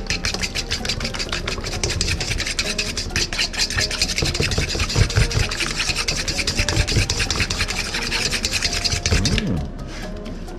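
A fork beating an egg in a bowl: a fast, steady run of scraping clicks that stops about a second before the end.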